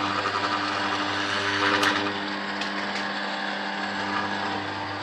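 Electric garage door motor running with a steady hum and a few light ticks, but not lifting the door: the clips that hold the door to the mechanism have all come off.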